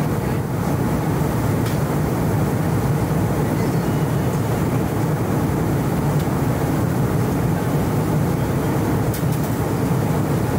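Steady low rush of cabin noise inside an Embraer E190 airliner in flight, from its engines and the air streaming past the fuselage.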